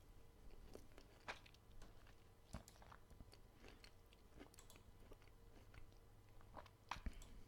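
Faint, scattered mouth clicks of someone chewing mandarin orange segments close to the microphone, over a low steady room hum.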